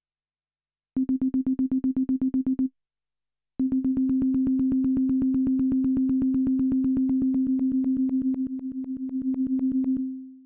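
Elektron Digitone polyphonic digital FM synthesizer playing one low note repeated rapidly, about eight times a second. A short run starts about a second in and stops; a longer run follows and dips in loudness briefly before stopping near the end.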